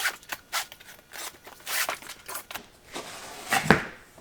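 Cardboard box being opened by hand: a run of short, sharp scraping and tearing noises as the tape is cut and the flaps are pulled, with a heavy thump about three and a half seconds in.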